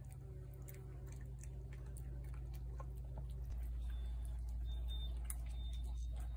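A cat eating wet food from a plate: soft, irregular chewing clicks over a low steady hum.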